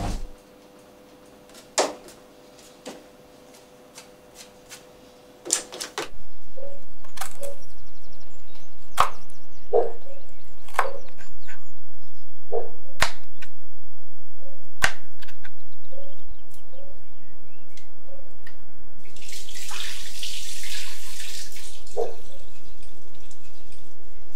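A kitchen knife slicing a cucumber on a cutting board: separate sharp chops about one to two seconds apart, after a quiet opening with a few faint clicks. Near the end a tap runs briefly with a splashing hiss.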